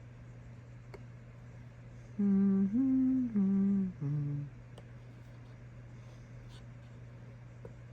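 A man humming a short four-note phrase, the second note higher and the last one lower, over a steady low electrical hum, with a few faint clicks.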